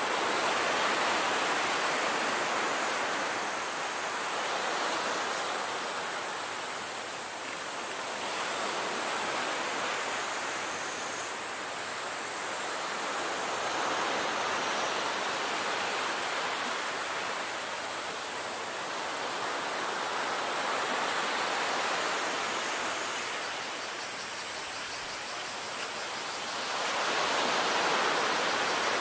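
Sea surf: a steady rush of water noise that swells and eases every several seconds.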